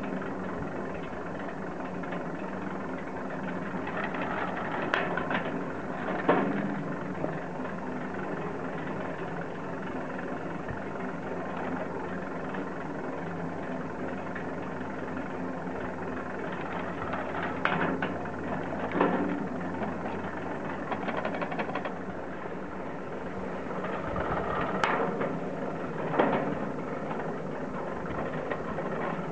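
Surface ski lift running at its bullwheel station, a steady mechanical hum. Three times, a pair of short rattling clacks about a second apart comes through as the tow hangers pass around the wheel.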